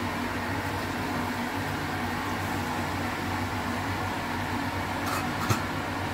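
Steady fan-like mechanical hum, with a couple of soft clicks about five seconds in.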